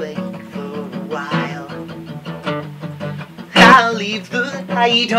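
Acoustic guitar being strummed in a steady rhythm, with one harder strum about three and a half seconds in.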